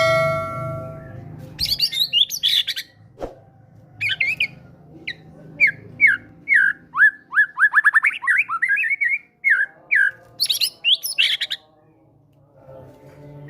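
White-rumped shama (murai batu) singing in quick bursts of varied chirps and whistles, with a fast run of falling notes near the middle. It opens with a loud ringing tone that fades within about a second.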